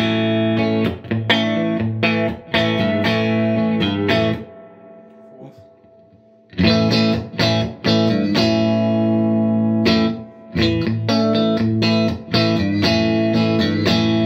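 Electric guitar played through a Fender '64 Deluxe Reverb custom shop hand-wired tube amp on a clean, low-volume setting: strummed chords left to ring, a last chord dying away over about two seconds near the middle, then more strummed chords.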